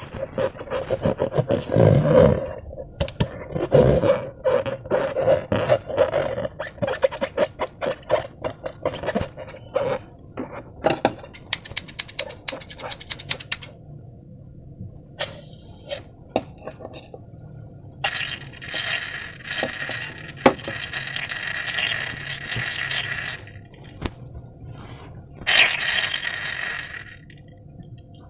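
Sticky slime being squeezed and worked by hand, with fast wet squelching and clicking, then two stretches of steady hissing later on.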